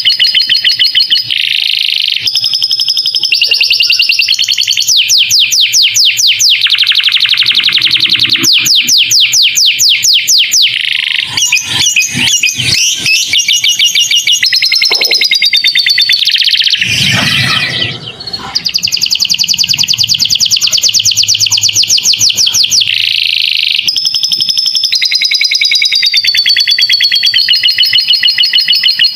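Domestic canary singing a long, continuous high-pitched song of rapid trills and whistled phrases, with lovebird-style fill phrases worked in. About seventeen seconds in comes a brief, harsher, rougher passage.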